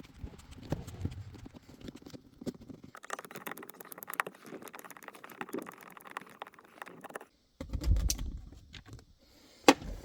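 Scattered clicks, taps and rattles of plastic interior trim and clips being handled and pulled loose from a Subaru BRZ's center console, with one sharper click near the end.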